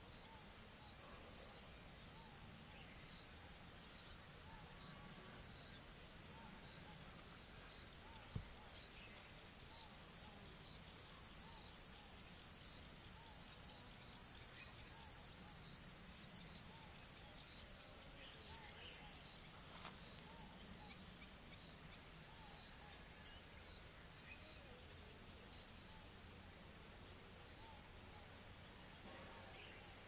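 Steady, high-pitched insect chorus: a continuous trill with rapid pulsing above it. Faint short chirps repeat lower down, and there is a single click about eight seconds in.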